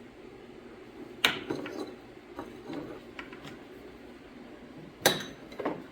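Tools and small parts being handled: a sharp knock about a second in, a few light clicks, then another sharp knock followed by a smaller one near the end.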